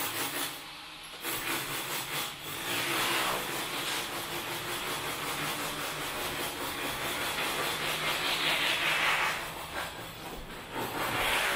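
Steady hiss of rain on a wet street, swelling twice.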